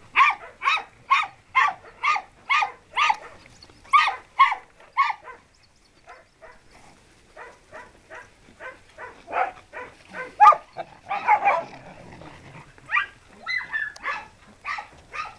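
Dogs barking. For the first five seconds one dog barks steadily, about twice a second. Then several dogs bark irregularly at different pitches, busiest past the middle.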